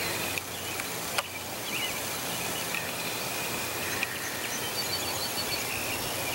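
Outdoor ambience: a steady hiss of background noise with faint bird chirps, and one sharp click about a second in.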